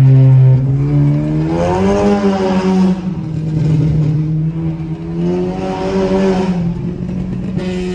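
Turbocharged Honda Civic's engine heard from inside the cabin while accelerating. Its note rises and falls twice as the revs climb and drop.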